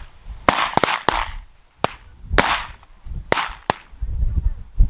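A volley of shotgun shots from several hunters firing at flushed pheasants: about eight sharp reports, some in quick pairs, spread over four seconds, each with a short echo, over low wind rumble on the microphone.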